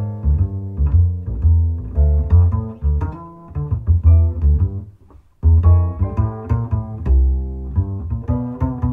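Instrumental jazz played back through JBL 4312SX loudspeakers driven by a 1.5 W single-ended 6BM8 tube amplifier, with a heavy bass line under the melody. The music drops out briefly about five seconds in, then picks up again.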